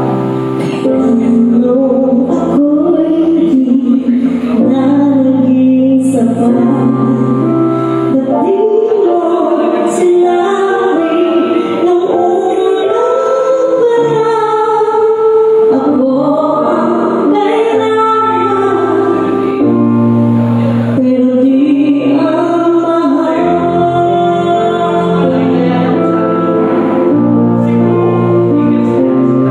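A woman singing into a microphone over backing music, holding long notes as her voice bends up and down.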